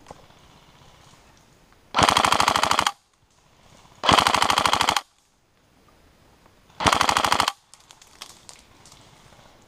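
Airsoft electric rifle, a Tokyo Marui SCAR-H, firing three full-auto bursts of about a second each, with short pauses between them and the last burst a little shorter. Each burst is a fast, even rattle of shots. Faint scattered clicks follow.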